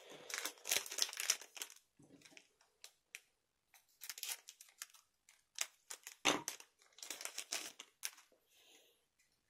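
Foil wrapper of a Weiß Schwarz trading-card booster pack crinkling and crackling in clumps as the pack is handled and opened, with a single soft knock about six seconds in.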